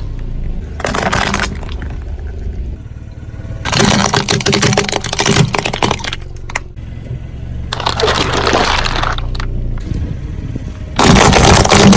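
A car's tyre rolling over and crushing brittle objects, with bursts of crackling and breaking about a second in, from about four to six seconds, around eight seconds, and loudest near the end. The car's engine hums low underneath.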